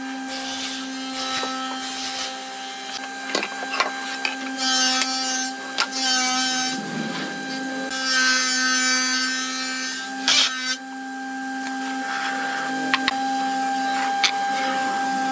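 Electric power tool's motor running steadily with a constant hum as wood is worked, with rougher stretches of cutting noise twice and a few sharp knocks, the loudest about ten seconds in.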